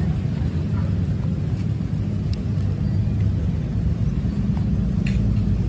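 Steady low mechanical rumble, like a motor running, with a few faint light clicks.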